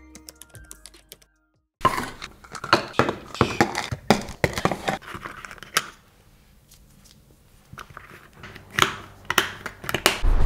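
Capsules rattling and plastic pill-organizer lids snapping as supplements are sorted by hand into a weekly pill box: a busy run of sharp clicks and rattles, a quieter pause in the middle, then more sharp clicks near the end.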